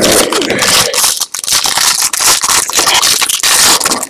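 Foil trading-card pack wrapper crinkling and tearing as it is ripped open by hand, loud and close, with a constant crackle.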